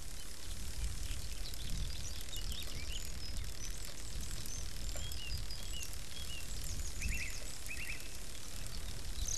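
Open-country ambience: a steady low rumble and hiss, with small birds chirping now and then, short quick chirps throughout and a couple of rapid trills near the end.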